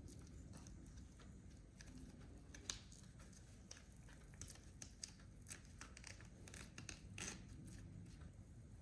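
Quiet room with faint, scattered light clicks and taps of handling. There is a sharper tick a little under three seconds in and a brief rustle a little past seven seconds.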